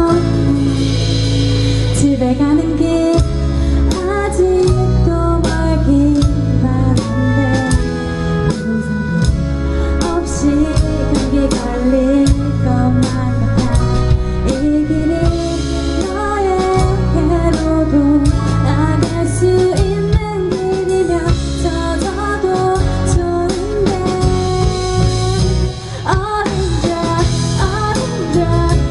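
Female vocalist singing a pop ballad with a live band: acoustic guitar, electric bass, two keyboards and drum kit.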